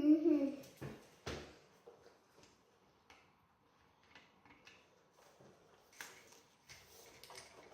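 Hard plastic Playmobil toy parts being handled and snapped into place: scattered clicks and taps, with a louder click about a second in and more clicking near the end. A short voice sound opens it.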